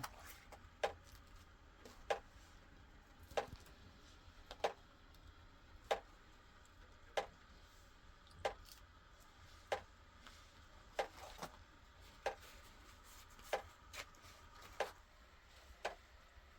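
A steady series of short knocks, about one every second and a quarter, each a single sharp tap.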